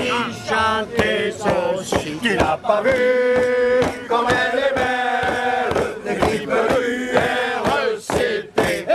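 Male voices chanting in unison in a rousing song, some notes held for about a second, over sharp percussive beats.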